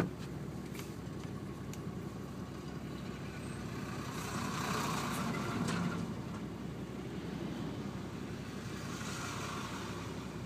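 Turbocharged Nissan RD28 2.8-litre inline-six diesel idling through a 3-inch exhaust with no mufflers, heard from inside the cab with the passenger window open a little. Another vehicle swells past close by about four to six seconds in.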